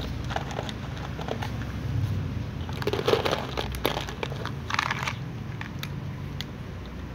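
Dry cat kibble poured from a plastic tub, rattling onto upturned plastic bowls in two short spills about three and five seconds in, with small ticks of cats crunching the dry food between them.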